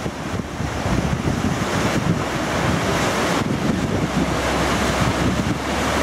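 Waterfall rushing steadily: white water pouring over a rocky drop in a continuous roar of falling water.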